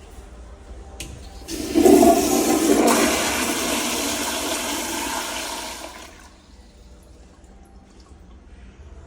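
American Standard Madera flushometer toilet flushing. A click about a second in, then a sudden loud rush of water that peaks at once and fades away over about four seconds.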